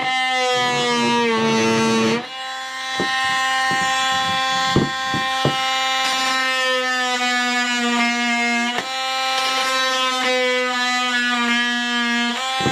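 Power drill motor running with a steady, many-toned whine while cutting into a plastic bucket. It stops and restarts about two seconds in, a few sharp clicks come around the middle, and its pitch dips briefly near the end.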